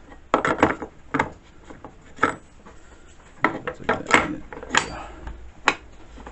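Metal chainsaw scrench clicking and clattering against the saw's housing as it is handled and fitted into its storage spot on the saw: a dozen or so sharp, irregular clicks and knocks.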